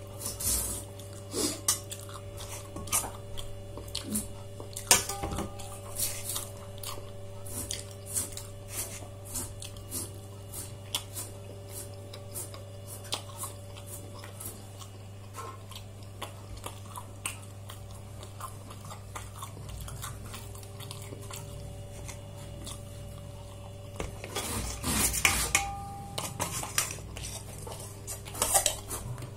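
Dishes and cutlery clinking in irregular light clicks and knocks over a steady low hum, with a denser run of clatter about 25 seconds in.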